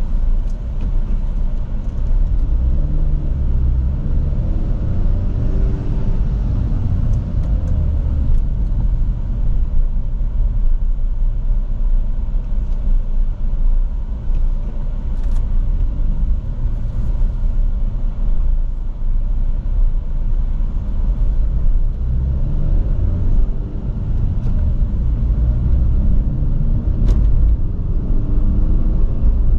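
Small sports car's engine and exhaust running under way, with road noise, its engine note rising as it accelerates a few seconds in and again near the end.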